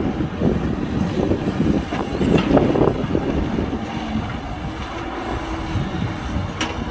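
Excavator diesel engine running, with a few short clanks in the first half. From about halfway it settles into a steadier hum, and there is one sharp click near the end.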